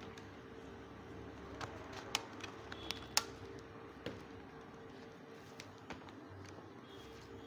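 A few small sharp clicks and taps of a laptop battery being unplugged and the board handled, the loudest about three seconds in, over a faint steady hum.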